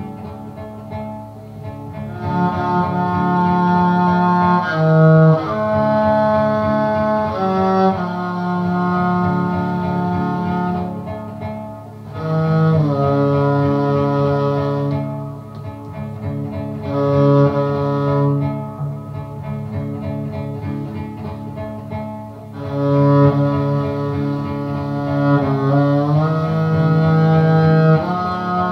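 Cello playing a slow melody in long bowed notes, with short slides between some of them and brief pauses between phrases.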